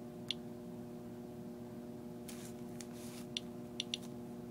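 CRM-100 Geiger counter giving short, high-pitched clicks at irregular intervals, a handful in a few seconds, over a steady low hum. Each click is a count of radiation from a radium-dial compass getting through a sheet of lead and foil. There is a soft rustle in the middle.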